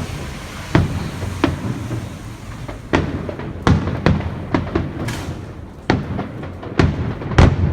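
Fireworks display: aerial shells bursting in a quick irregular series of about ten sharp bangs over a low continuous rumble, the loudest bang near the end.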